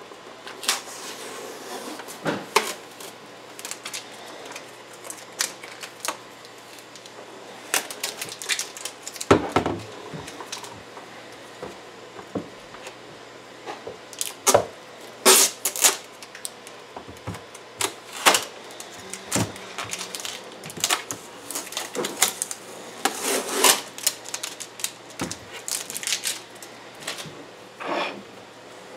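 Blue tape being peeled off the plastic case of an M3D Micro 3D printer while the printer is handled, giving irregular short rips, crackles and clicks.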